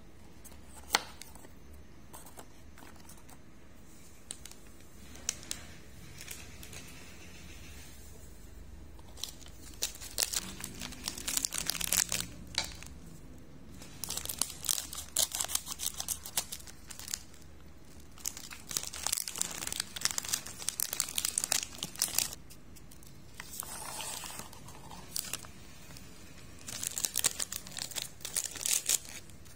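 Foil-lined plastic snack wrappers, among them a Nabati wafer packet, crinkling and tearing as they are opened and handled, in irregular bursts of crackling separated by quieter pauses.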